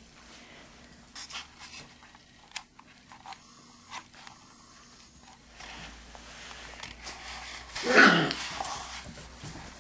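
Four-week-old Belgian Sheepdog puppy gives one short, loud yelp about eight seconds in. Before it come scattered light clicks of puppies' claws on a tiled floor.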